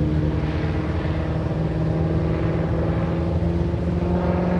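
1941 Piper J-3 Cub's engine and propeller droning steadily overhead in flight, its pitch rising slowly.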